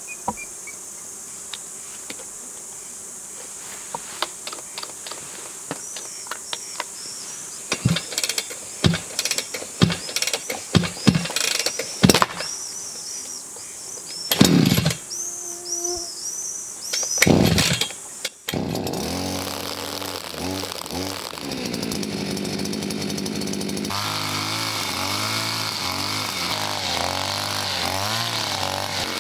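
Huter two-stroke petrol brush cutter being pull-started: several sharp tugs on the recoil starter, with short sputters, before the engine catches about 18 seconds in. It then runs steadily and speeds up about 24 seconds in as mowing begins.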